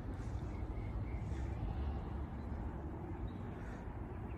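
Outdoor background noise: a steady low rumble, with a few faint high chirps, likely birds, in the first second or so.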